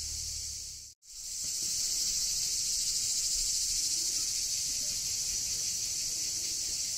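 Steady, shrill chorus of cicadas, cutting out for a moment about a second in and then carrying on a little louder.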